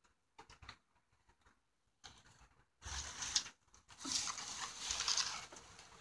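Scraping and rustling from gloved hands and a tool working over a plastic compost bin, with a few faint clicks, then louder from about three seconds in.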